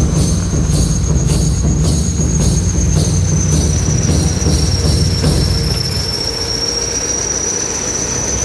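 Earthmoving machinery working: diesel backhoe loaders and a tracked bulldozer running with a low rumble and a steady high-pitched squeal that slowly wavers in pitch. Through the first three seconds, knocks come about twice a second.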